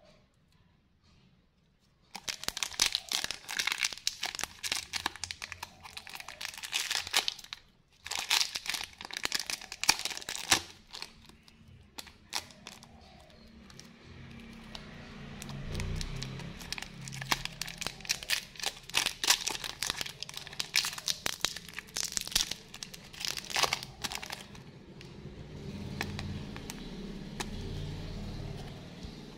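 A lollipop's plastic wrapper is crinkled and torn open by hand. It comes as bursts of crackling with short pauses, starting about two seconds in.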